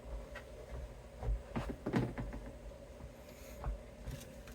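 A few light knocks and rustles of hands moving guitar pickups and wiring aside, over a faint steady hum.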